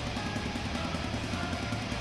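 Background instrumental music with electric guitar and drums, at a steady level.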